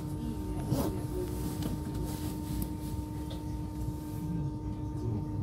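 Cabin sound of a KAMAZ-6282 electric bus standing or barely moving: a steady electrical hum with a low rumble underneath, and one brief knock about a second in.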